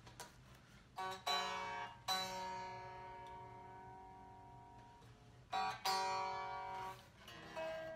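Kramer Pacer Classic electric guitar strummed unplugged, its strings still out of tune: several quiet chords, two of which ring on for a few seconds and fade away.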